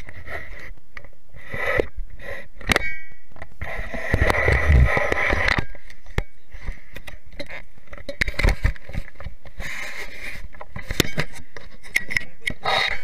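Handling noise on a handheld camera's microphone as a baby grabs at it: irregular knocks, clicks and rubbing, with a heavy rumbling scrape about four to five seconds in.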